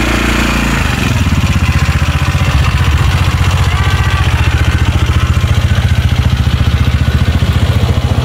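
Small ATV engine running, steady at first, then with a fast, even pulsing from about a second in as the quad moves off.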